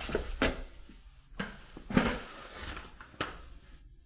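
Handling noise: a few light knocks and rustles, about five in four seconds, as hands and multimeter leads move against a sheet-metal air handler cabinet.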